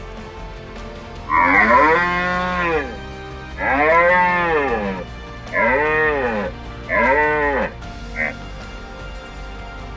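Red deer stag roaring during the rut: four deep roars, each rising then falling in pitch, the first two longer and the last two shorter, then a brief grunt.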